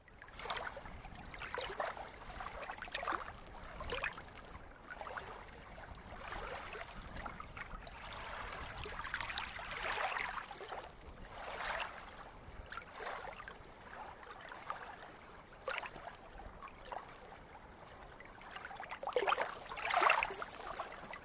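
Water splashing and trickling in irregular bursts every second or two.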